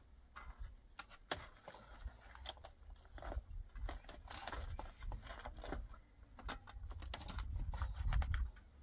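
Spoons and cutlery clinking and scraping against a metal pot, a metal serving tray and foil as rice and baked fish are served: many short, irregular taps and scrapes over a low rumble.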